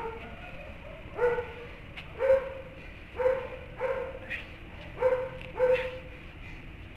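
A dog barking repeatedly: about seven short barks, roughly one a second.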